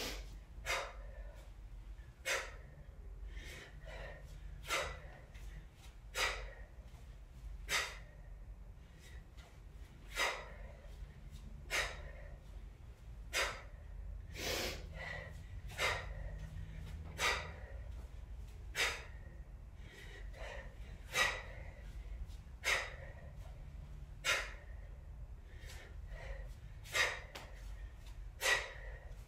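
A woman's sharp, hissing breaths, a forceful exhale timed with each kettlebell swing and snatch, repeating steadily about every one and a half seconds. A faint low hum runs underneath.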